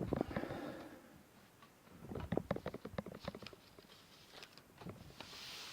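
A laptop's plastic case being handled on a work surface: scattered light clicks and taps, clustered near the start and again about two to three seconds in, with a soft hiss just before the end.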